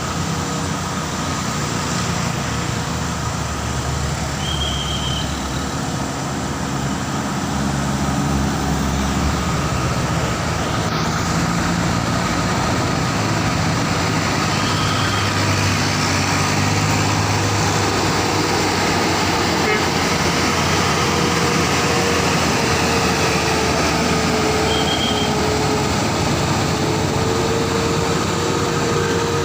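Road traffic with heavy vehicles such as buses and trucks going past: engines running and tyres on the road. It gets louder about eight seconds in.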